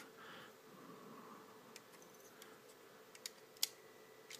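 Faint scattered clicks and taps of small hard-plastic toy parts as an upgrade-kit weapon piece is worked onto a Transformers Hound figure's mount, which does not snap in snugly. There are a handful of sharp clicks, the loudest about three and a half seconds in.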